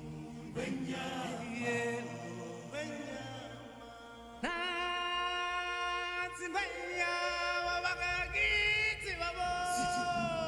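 Choral chanting music with long, held sung notes. It swells suddenly louder about four and a half seconds in.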